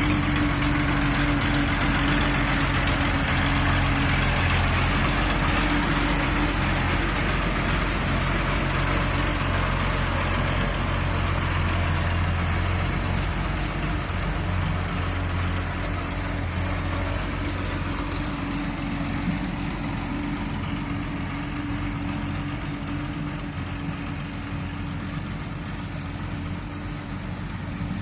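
Road roller's engine running steadily with a low hum, slowly getting quieter.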